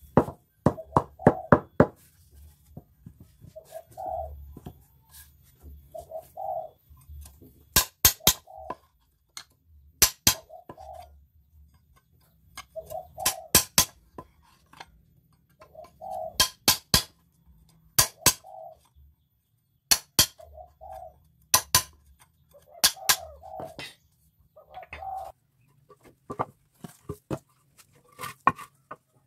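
Mallet striking a hand chisel while carving a teak table leg, in quick bursts of two to five sharp taps every two to three seconds.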